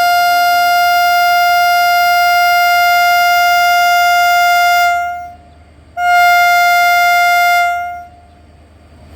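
Air horn of an Indian Railways WAP-4 electric locomotive giving its departure honk: one long steady blast that cuts off about five seconds in, then after a short gap a second blast of about two seconds.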